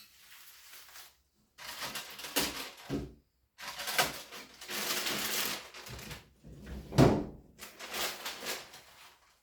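Packaging being rustled and handled in irregular stretches, with a few knocks, the sharpest about seven seconds in.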